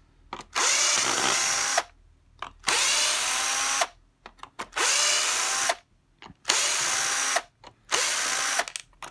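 Cordless drill-driver backing screws out of a plastic heater case in five short runs of about a second each. Each run has a motor whine that rises at the start, with small clicks from the bit on the screw heads between runs.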